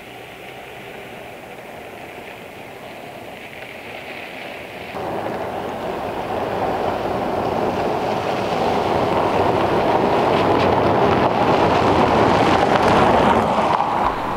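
4WD driving along a gravel forest road toward and past the camera, its engine and tyres crunching on gravel. The sound jumps up about five seconds in, grows louder as the vehicle closes in, and falls away near the end as it goes by.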